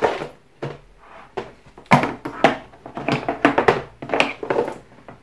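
Clicks and knocks as a rotary tool's flexible shaft attachment is handled in a hard plastic carrying case. There are a few single knocks near the start and a dense run of them from about two to four and a half seconds in.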